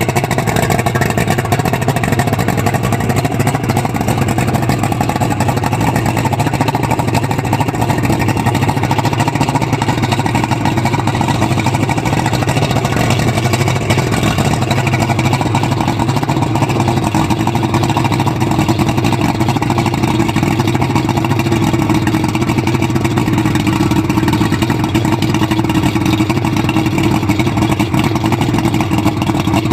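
Yamaha VMAX 3.1-litre six-cylinder outboard engine running steadily, with no revving.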